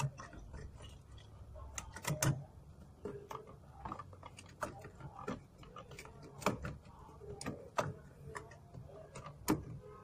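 Scattered light clicks and knocks of hands working on a semi-automatic washing machine's drain parts after clearing the blockage. A faint low hum sounds underneath.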